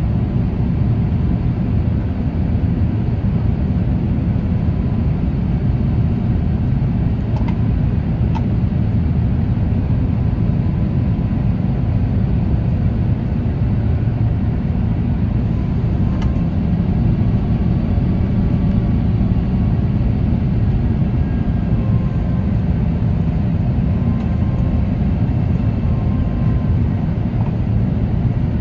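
Steady cabin roar of an Airbus A350-1000 heard from a window seat, the Rolls-Royce Trent XWB-97 engines and airflow making a dense low rumble with a faint steady hum, as the airliner descends on approach.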